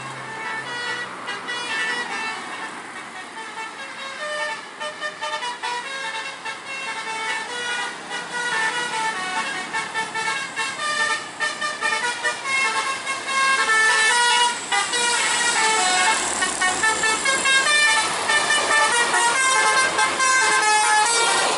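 Tour bus 'telolet basuri' multi-tone horn playing a fast melody of short notes that step up and down in pitch, growing louder, loudest in the second half.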